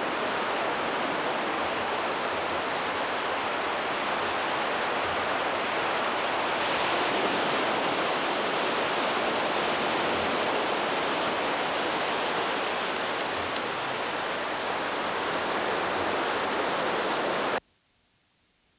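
Steady rushing noise of surf at the beach, picked up on a camcorder microphone; it cuts off suddenly about a second before the end.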